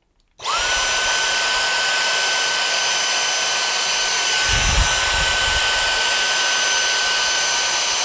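Dyson cordless handheld vacuum switched on about half a second in, its motor whine rising quickly to a steady high pitch over a rush of air, as it vacuums dust from a fridge freezer's condenser coils. A brief low rumble comes about halfway through.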